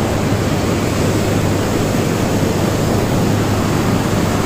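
A swollen mountain river in flood, its muddy torrent rushing with a loud, steady roar of churning water.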